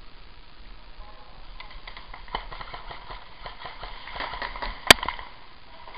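Airsoft gunfire: a quick, irregular string of sharp pops, with one much louder, closer shot a little before the end.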